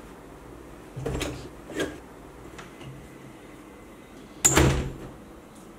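Wooden bedroom door being handled and shut: two softer knocks about a second in, then a loud bang as the door closes about four and a half seconds in.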